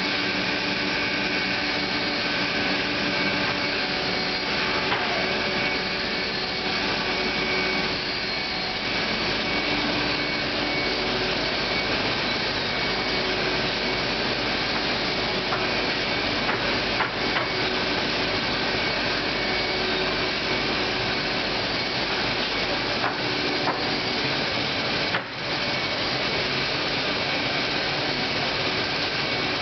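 Steady, loud din of book-printing machinery running: presses and paper-handling machines. There are a few light knocks as stacks of paper are handled, and the noise drops out for an instant about three quarters of the way through.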